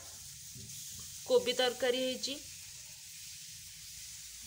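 Cauliflower and potato curry sizzling in a kadai, a steady hiss that cuts off suddenly at the end.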